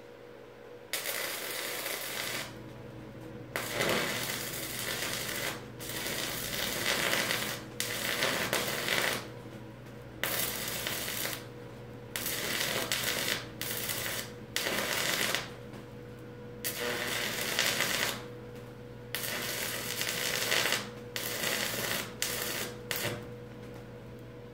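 Stick (arc) welding rod crackling and sizzling on a steel post-to-beam joint in a string of short runs, each about one to two seconds with brief pauses between, over a steady low hum.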